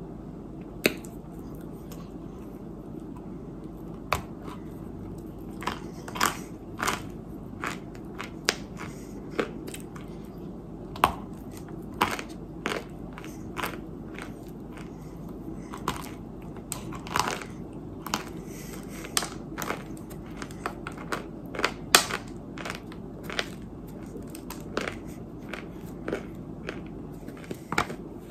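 Biting and chewing dry chunks of white clay: many irregular sharp crunches and snaps, one especially loud about three-quarters of the way through, over a steady low background hum.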